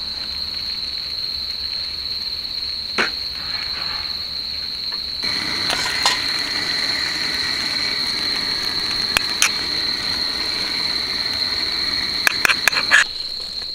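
Crickets singing in a steady, high-pitched chorus. A few sharp clicks sound over it, and a wider hiss joins about five seconds in and stops shortly before the end.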